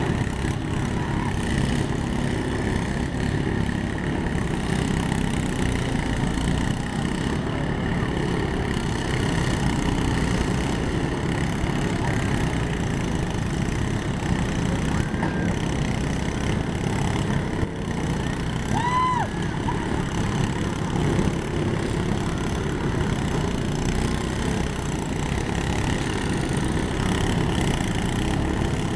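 Several lawn mower engines running together in a steady drone.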